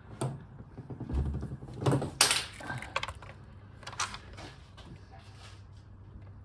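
Socket on a long extension clinking and scraping in a spark plug well as it is worked down onto the plug, in a few short clattering bursts.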